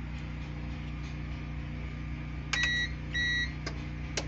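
EcoFlow Delta Pro Ultra home backup system switching to battery power after the grid feed is cut: relays clicking a few times and two short high beeps about two and a half seconds in, over a steady low hum.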